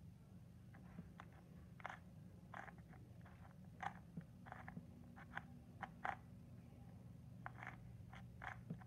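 Faint, irregular plastic clicks of a 2x2x3 cuboid twisty puzzle being turned by hand, over a low steady hum.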